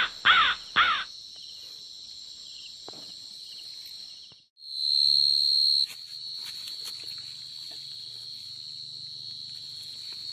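Field crickets (dế mèn) singing in a steady, high-pitched chorus. Midway the sound briefly drops out, then one cricket sings loud and close for about a second. Three loud short sounds come in quick succession at the very start.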